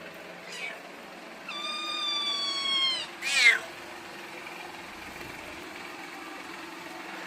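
Bengal kitten meowing: a faint short mew, then a long drawn-out meow about a second and a half in, followed at once by a short, louder cry that drops sharply in pitch.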